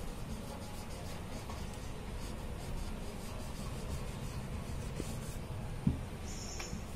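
Marker pen writing in cursive on a white board, a faint scratchy sound of the strokes, with one small tap about six seconds in.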